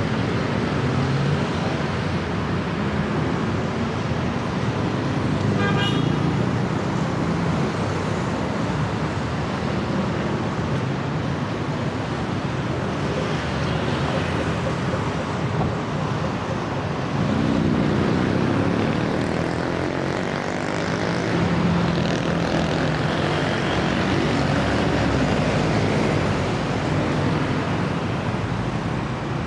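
Busy city street traffic: cars and motorbikes running and passing in a steady roar of engine and tyre noise. About six seconds in there is a brief high-pitched tone, and a nearby engine grows louder and fades again a little past the middle.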